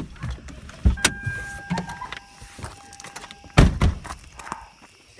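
A car door clunks open, the car's steady warning tone sounds for about two seconds, and then the door slams shut with a loud bang.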